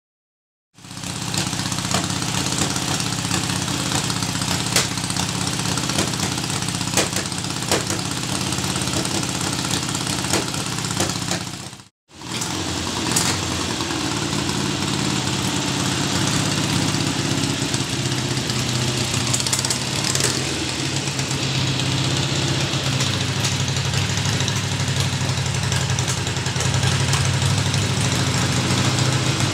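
Harley-Davidson XLCH Sportster's air-cooled Ironhead V-twin running at idle with a lumpy, uneven beat and sharp ticks, during its tune-up. The sound breaks off for a moment about twelve seconds in, then the engine carries on running steadily.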